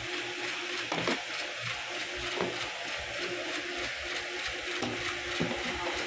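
A cardboard keyboard box and its clear plastic cover being handled and opened: a few soft knocks and rustles over a steady background hiss.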